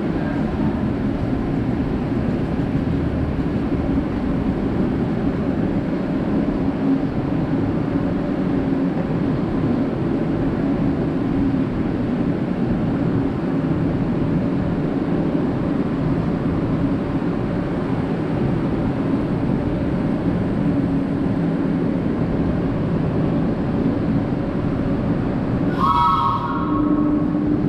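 Metre-gauge electric panoramic train of the Centovalli Railway standing at an underground platform, giving a steady hum and rumble with a few held low tones. A short chime of several stacked tones sounds near the end.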